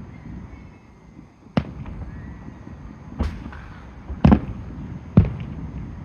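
Aerial fireworks shells bursting in a display: four sharp booming bangs spaced about a second apart, from about a second and a half in. A faint thin whistle sounds in the first second.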